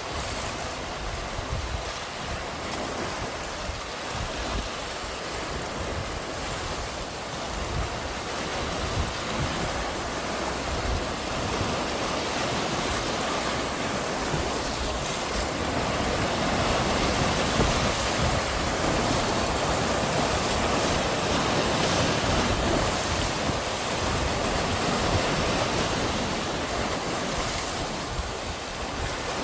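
Sea waves washing in on the shore: a continuous wash of surf that grows louder through the middle and eases off near the end.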